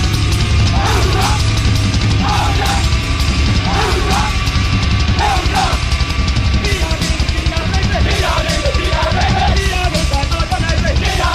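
Heavy metal music with a fast, steady beat.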